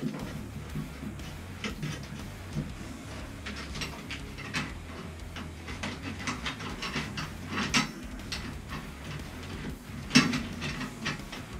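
Irregular metallic clicks and taps of a hand tool working a pipe fitting, with a louder knock about ten seconds in.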